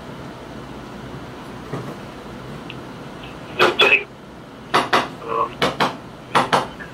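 A faint steady hiss, then from about three and a half seconds in a quick run of sharp clinks and taps, mostly in pairs, from small hard objects knocking on a hard surface.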